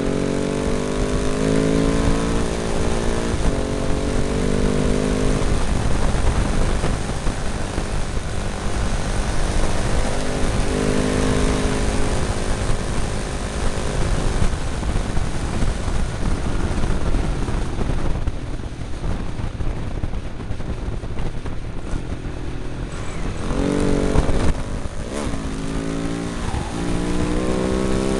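Husaberg single-cylinder motorcycle engine accelerating hard in repeated bursts, its pitch climbing and stepping down at each gear change. Between the bursts it eases off through the middle, then pulls hard again near the end. Throughout, wind rushes over the microphone.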